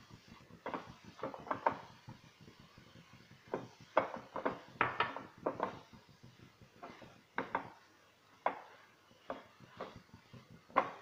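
Red silicone spatula stirring and scraping gram flour and chopped green chillies around a non-stick pan, a string of short, irregular scrapes and taps, busiest around the middle.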